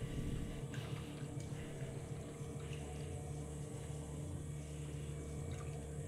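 Electric potter's wheel motor humming steadily while wet clay squishes under the potter's hands on the turning wheel, with a few soft wet ticks.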